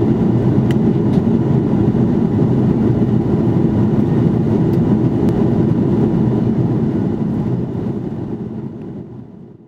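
Steady roar of an Airbus A330-300's cabin in flight: engine and airflow noise, with a few faint clicks. It fades out over the last second or two.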